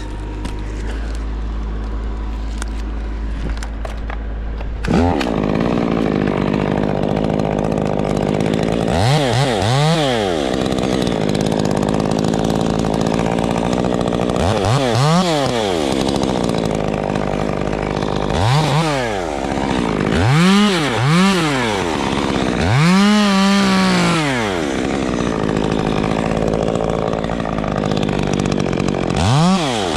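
Small Stihl chainsaw idling, then from about five seconds in revved up to full throttle and let back to idle about seven times in short bursts as it cuts pine limbs.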